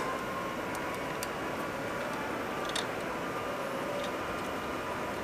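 Steady background room noise with a few faint, light clicks of a screwdriver working the bolts on a 3D printer's X-axis block.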